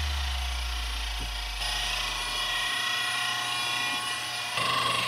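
A deep bass tone dies away over the first two and a half seconds. Under it a steady machine hum holding several fixed pitches sets in and steps louder about four and a half seconds in.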